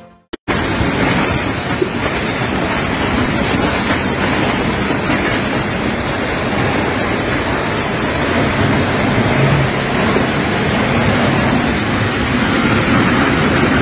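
Tornado wind blowing hard across a phone's microphone: a loud, steady rushing noise that starts abruptly about half a second in.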